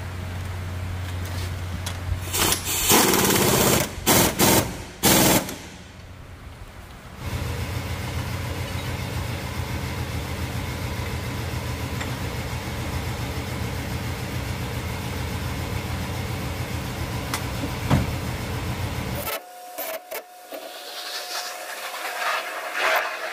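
Dongyang 5240 tractor's diesel engine running at a steady idle, interrupted about three seconds in by a few loud rushes of hissing noise and a short lull, then running steadily again until it stops abruptly near the end.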